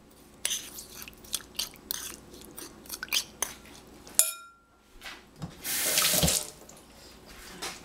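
Metal spoon clinking and scraping against a ceramic bowl as it stirs chili slices in lemon juice, then set down with a sharp ringing clink about four seconds in. About two seconds later comes a brief, loud rushing noise, the loudest sound here.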